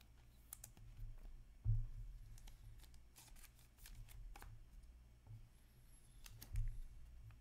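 Trading card and clear plastic card holder being handled, the card slid into the holder, with light scratchy slides and clicks. Two soft thumps, about two seconds in and near the end.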